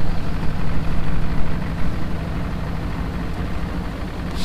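Outboard motor running steadily at low speed with an even hum, as the aluminium fishing boat eases away from the dock.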